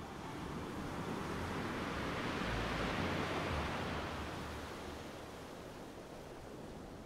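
Sea surf rushing: one swell of noise that builds to a peak about three seconds in, then slowly fades.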